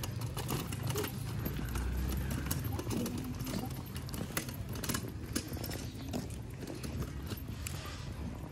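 Wheelchair being pushed over cracked concrete, with irregular clicks and taps of footsteps in sandals walking alongside.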